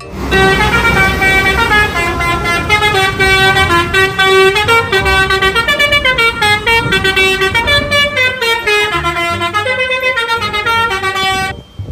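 A bus's Basuri telolet multi-tone horn playing a fast tune, its pitch stepping up and down from note to note, over a low engine rumble. It stops sharply near the end.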